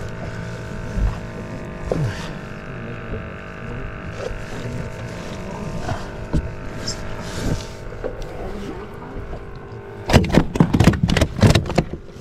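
A steady mechanical hum with light handling noises over it. About ten seconds in comes a quick run of slaps and knocks on the fiberglass deck as a flounder flaps and is held down by hand.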